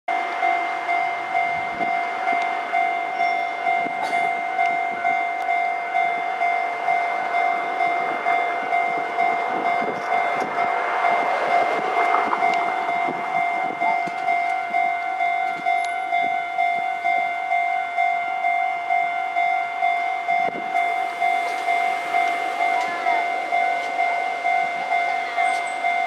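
Japanese level-crossing alarm ringing, an electronic ding repeating about twice a second, as a KiHa 75 diesel railcar rolls slowly toward the crossing. The train's running noise swells about halfway through.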